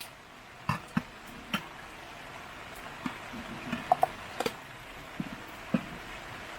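Light clinks and taps of camp cookware and utensils, about a dozen scattered strokes, one ringing briefly like metal a little after halfway, over a steady hiss of rain.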